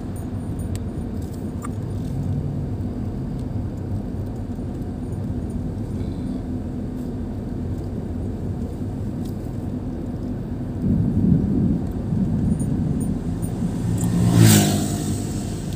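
Car driving along a road: a steady low rumble of engine and tyre noise, swelling louder about 11 seconds in and again near the end, when a motorcycle passes going the other way.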